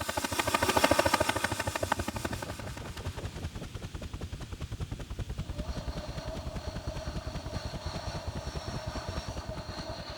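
Rapid, even, engine-like rattling pulse from an experimental electronic composition. It swells over the first two seconds and then holds steady, and a sustained mid and high tone joins in about halfway through.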